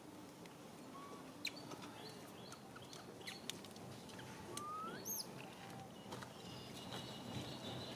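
Faint outdoor ambience with scattered sharp clicks and a few short high chirps, and one rising squeal about five seconds in.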